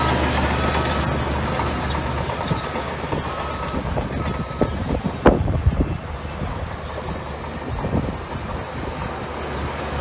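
Shantui bulldozer's diesel engine running steadily, with a reversing alarm beeping on and off during the first few seconds and a few sharp clanks about five seconds in.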